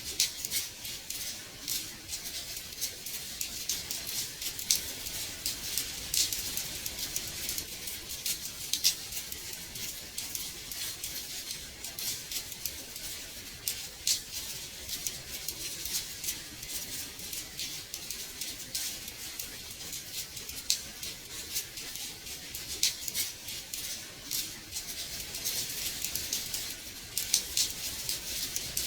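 Rain tapping on window glass: a steady hiss of many small, irregular drop ticks, some sharper and louder than the rest.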